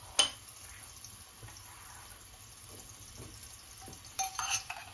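A sharp clink just after the start, then a faint steady hiss of the water heating around the peppers in the pan as it comes to the boil. About four seconds in, a metal spoon scrapes and clinks inside a small stainless-steel pot where butter is melting.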